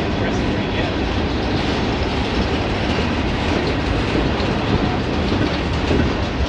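Freight cars rolling past close by, covered hoppers and then a tank car: a steady rumble of steel wheels on the rails.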